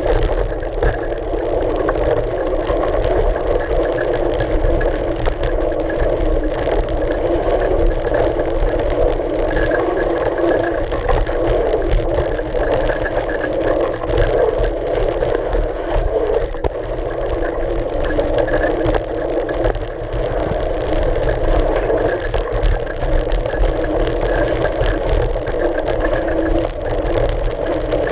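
Steady rolling noise from a mountain bike's knobby front tyre running over a dirt trail, mixed with wind, heard from a camera mounted on the front fork.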